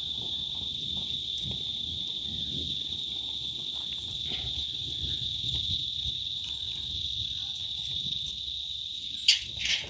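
Steady, unbroken high-pitched chirring of crickets or similar insects. Near the end, two sharp knocks come in quick succession.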